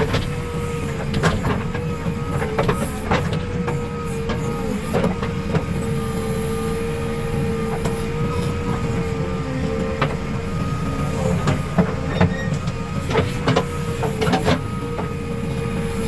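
Backhoe loader's diesel engine running under load with a steady whine, while the bucket knocks and clanks against earth and metal now and then, most often near the start and toward the end.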